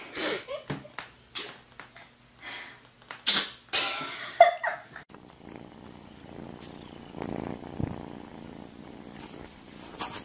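A cat sneezing, several short sharp sneezes in quick succession over the first few seconds, then a quieter rough, rattling sound for a few seconds.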